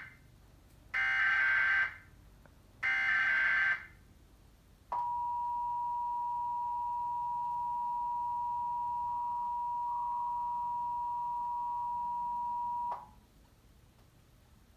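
Emergency Alert System alert broadcast over TV audio: two short bursts of shrill digital SAME header tones, about a second each, then the EAS two-tone attention signal (853 and 960 Hz together) held steady for about eight seconds and cut off sharply. It opens a Required Monthly Test.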